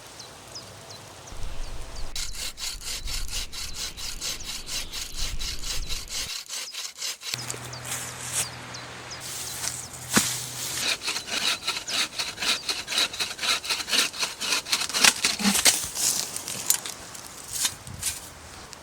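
Hand saw cutting through wood in quick, steady back-and-forth strokes, in two spells with a pause between them.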